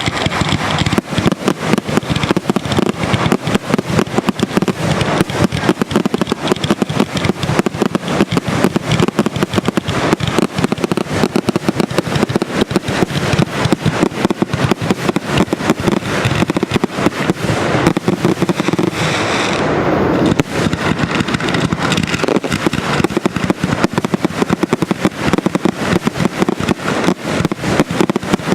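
Fireworks grand finale: a dense, continuous barrage of rapid bangs and crackles with no gaps.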